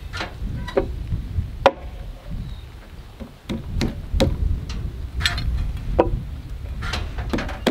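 About a dozen irregular sharp knocks and taps of hand tools against a cedar timber beam as the mitered joint is handled, over a steady low rumble.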